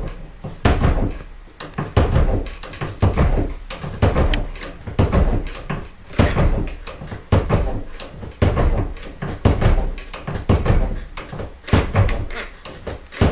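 Reloading press being short-stroked up and down, its ram and linkage clanking about once every second as a case stretcher swages a 45-70 brass case longer.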